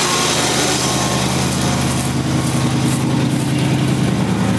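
1979 Ford Bronco's V8 engine idling steadily with the air-conditioning compressor engaged; its low note grows stronger about two seconds in.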